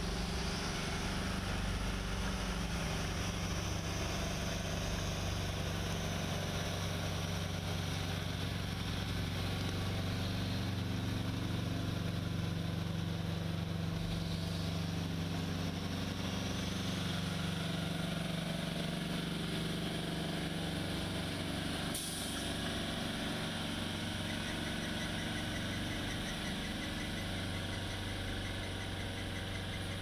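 Military cargo truck's engine running steadily at low revs, with one sharp click about two-thirds of the way through.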